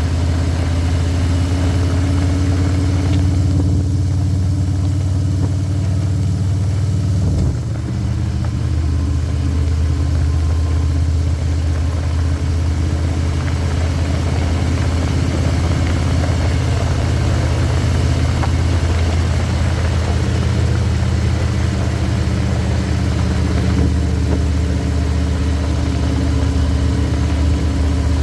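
Harley-Davidson Electra Glide's Milwaukee-Eight V-twin engine running steadily while riding, with a short break in the engine note about seven seconds in. The rider reports it running fine, no noisier than usual, on its fresh oil.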